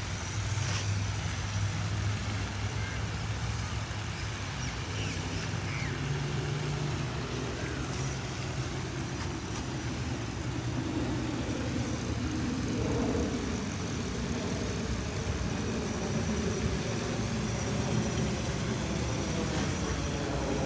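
Steady outdoor background noise: a continuous low rumble and hiss with no distinct events, carrying a low hum for the first several seconds.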